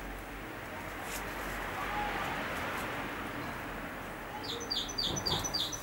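A small bird calls a quick run of high, evenly spaced chirps, about four a second, starting near the end over a steady outdoor background hiss.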